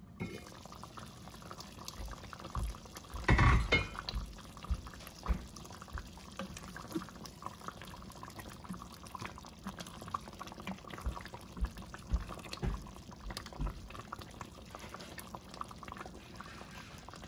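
Thick pumpkin stew in an enameled cast-iron Dutch oven, sloshing wetly as a wooden spoon stirs it. The spoon knocks softly against the pot many times, with one louder bump about three seconds in.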